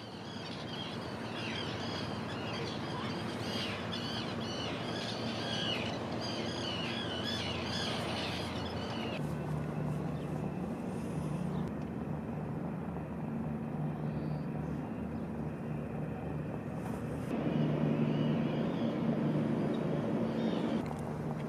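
A flock of gulls calling, many short overlapping calls over a noisy harbour background, for about the first nine seconds. Then the calls stop and a steady low hum takes over, growing a little louder near the end, with a few faint gull calls.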